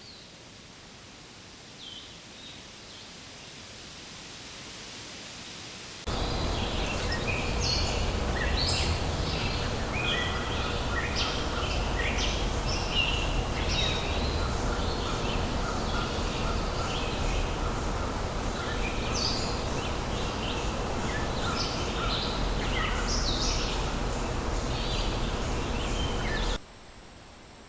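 Outdoor nature ambience sound effect: many birds chirping and calling over a steady low background rumble. It starts abruptly about six seconds in after faint hiss with a couple of soft chirps, and cuts off sharply near the end.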